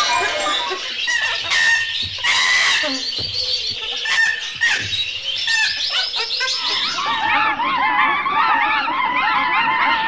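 Sound-effects collage of bird calls: scattered clicks and short calls, with a quick trill near six seconds in. About seven seconds in, a dense chorus of many overlapping wavering calls takes over.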